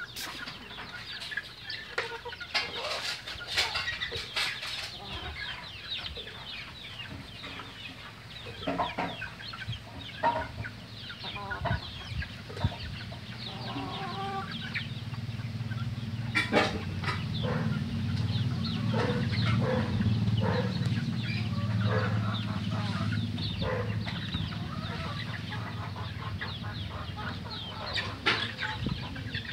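A flock of native free-range chickens clucking while pecking at the ground and wooden feeders, with many quick pecking taps. A low steady rumble builds up from about halfway through and then eases off.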